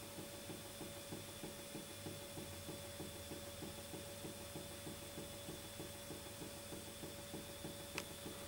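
Small replica of Robert Stirling's 1816 hot-air engine running over its lit burner, its moving parts giving a soft, even ticking of several beats a second, with one sharp click near the end.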